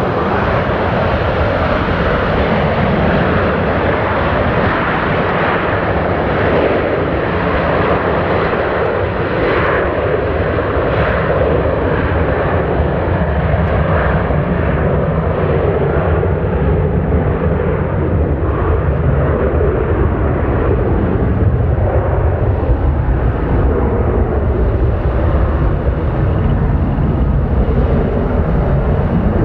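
Boeing 737-800's two CFM56-7B27 turbofan engines running at takeoff power as the airliner accelerates along the runway on its takeoff roll, a steady, loud jet noise.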